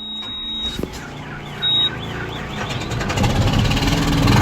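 MacDon self-propelled windrower's diesel engine cranking over on a battery that ran flat and is being boosted with chargers, then catching and running, getting louder near the end. A high warning beep sounds at the start and again briefly under two seconds in.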